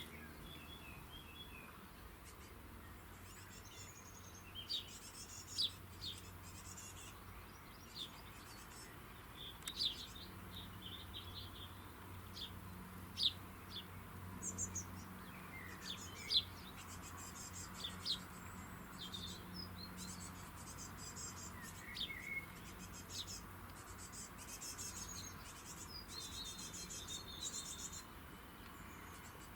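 Small songbirds chirping and twittering. Many short, high calls and some quick buzzy runs come in from a few seconds in onward.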